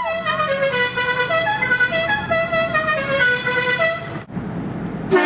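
A horn plays a quick tune of short, stepped notes. Just before the end a loud air horn blast starts suddenly and is held as a steady chord: a vehicle-mounted train horn.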